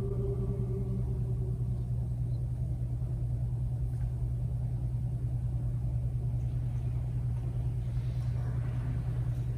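The last notes of piano music dying away in the first second or two, then a steady low rumble in the room, with faint rustling near the end.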